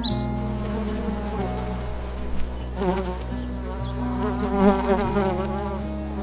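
Buzzing of a flying insect, wavering up and down in pitch and strongest about three to five seconds in.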